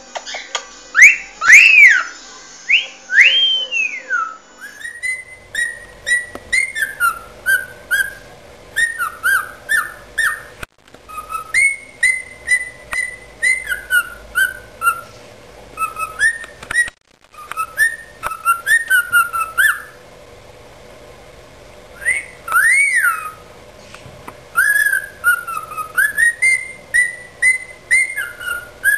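Cockatiel singing its natural whistled song: phrases of short whistles that slide up and down in pitch, with a pause of about two seconds about two-thirds of the way through.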